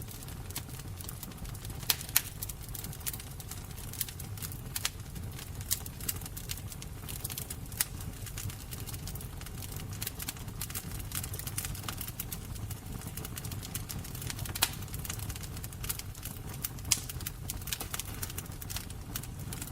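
Fire burning with steady crackling: frequent sharp pops and snaps, a few louder than the rest, over a low rumble of flames.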